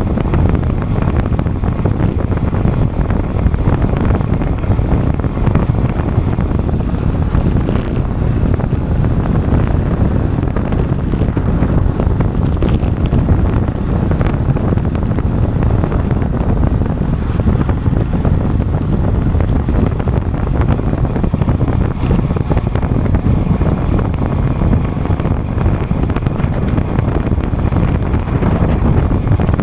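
Steady wind noise on the microphone of a camera carried on a road bike ridden at time-trial speed: loud, even and low.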